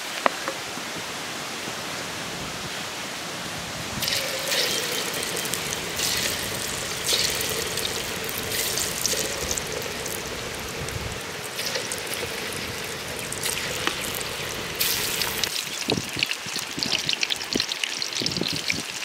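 Batter-coated bitter gourd slices frying in a pan of hot oil over a wood fire: a steady hiss with bursts of crackling sizzle that start about four seconds in as pieces go into the oil, growing denser near the end.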